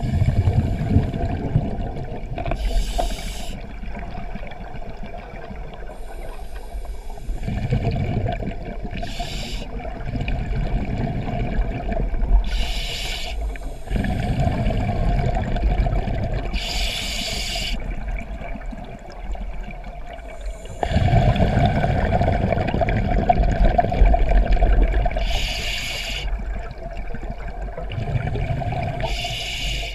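Scuba diver breathing through a regulator underwater: six breaths, each a short hiss of inhaled air followed by a longer gurgle of exhaled bubbles.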